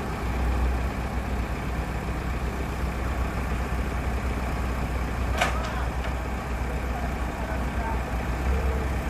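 Diesel engine of a Komatsu BA100 bored-pile drilling rig running steadily with a deep low hum, with one sharp knock about five seconds in.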